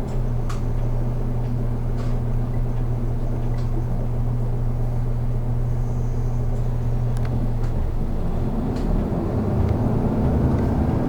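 City bus running, heard from inside the passenger cabin: a steady low engine hum with scattered short rattles and clicks, the engine note changing about two-thirds of the way through.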